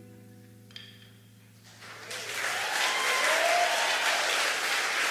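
The last sustained notes of the live improvisation die away. About two seconds in, audience applause breaks out and continues, with a voice calling out in the middle.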